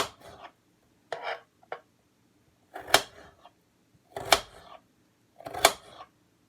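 Kitchen knife chopping potato on a cutting board: about five sharp knocks of the blade against the board, spaced a second or more apart.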